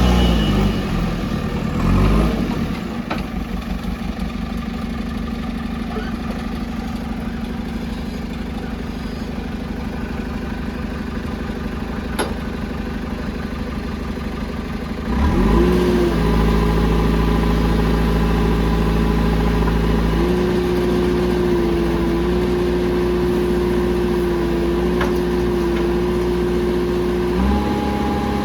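JCB loader's diesel engine running: it revs briefly at the start, settles to a lower steady run, then about halfway through revs up and holds a higher steady speed, with a small further step up later.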